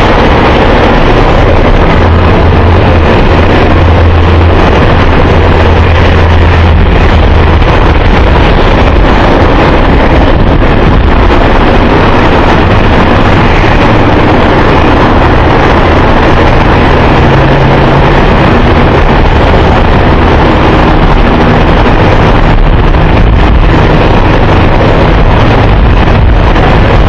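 Jet engines of a Boeing 747-200F freighter running: a loud, steady rush with a low hum under it.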